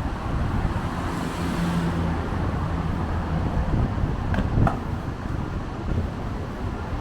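Strong wind buffeting a small camera's built-in microphone, with road traffic passing: a vehicle's engine hum and tyre hiss swell between about one and four seconds in. Two short clicks come close together a little after four seconds.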